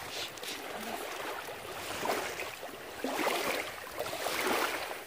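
Small waves washing up on the sand at the shoreline, a rushing hiss that swells and fades several times.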